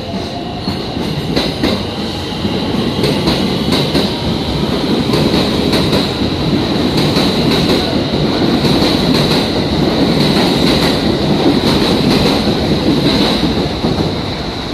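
Local electric commuter train pulling out of the platform and running past close by. Its wheels clatter over the rail joints above a steady high whine, building over the first few seconds and easing off near the end as the last car goes by.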